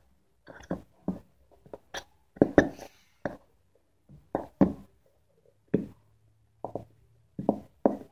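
A squeeze bottle of Elmer's school glue squeezed upside down, sputtering and squelching in short irregular bursts as glue and air are forced out of the nozzle.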